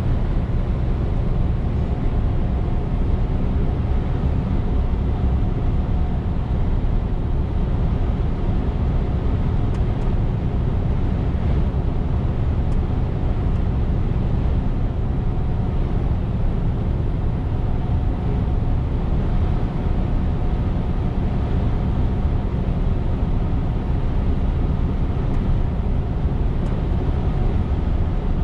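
Scania R410 truck's 13-litre inline-six diesel and tyres on the road: a steady, low drone while driving.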